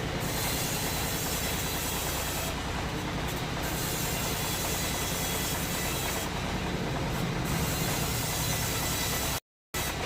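Sawmill machinery running steadily with a low hum and a rumbling, train-like noise. The sound cuts out briefly near the end.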